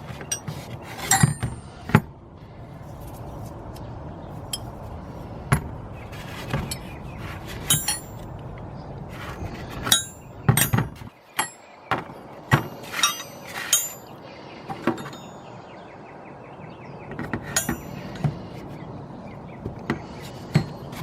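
Metal combination wrenches being set down one after another, clinking against each other and the surface in irregular clicks, a few with a brief high ring.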